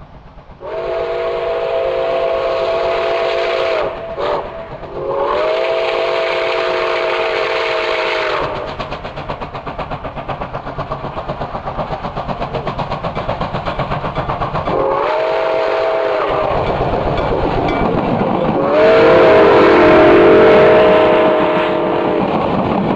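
Nickel Plate Road 765, a 1944 Berkshire steam locomotive, blowing its chime whistle in the grade-crossing pattern: two long blasts with a brief blip between them, a short, then a final long one, each sliding up to pitch as it starts. Between the blasts its rapid exhaust beats are heard, and the sound grows loudest near the end as the locomotive passes close.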